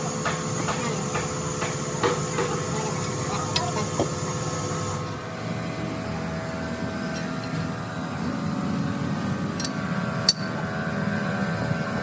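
A machine running with a steady low drone, with light knocks and a thin high hiss over the first few seconds; the hiss stops about five seconds in.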